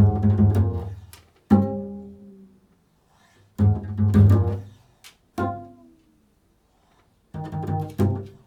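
Low-pitched string instrument plucked pizzicato in an improvised passage. Quick runs of several notes alternate with single notes left to ring and fade, with short silences between the phrases.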